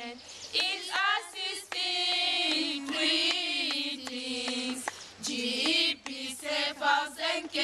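A group of young women singing a cappella, holding long notes with short breaks between phrases.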